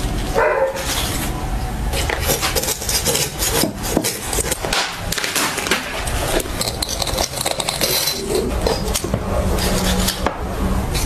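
A knife cutting and scraping through a raw carcass along the rib bones, making a dense run of small clicks, scrapes and tearing sounds.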